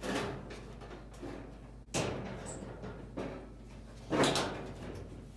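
Sheet-metal front door panel of a gas clothes dryer being slid and knocked into place: four scraping clunks, the sharpest about two seconds in and the loudest near four seconds.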